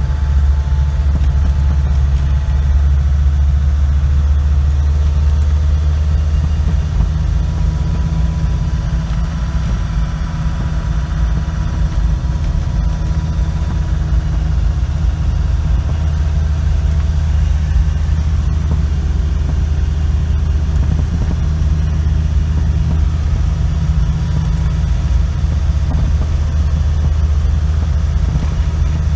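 Vehicle engine and road noise heard from inside the cab while driving, a steady low drone.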